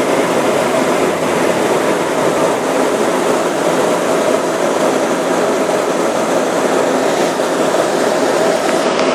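River ferry under way: a steady, loud drone of its engines and machinery that does not change.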